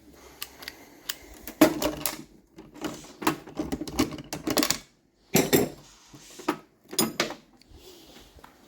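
Metal engine parts clicking and clattering against each other as they are handled and worked loose, in irregular clusters of sharp knocks with short gaps between.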